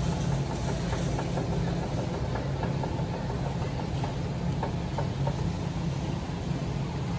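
Steady low mechanical hum of a store's background noise, with a few faint ticks and no speech.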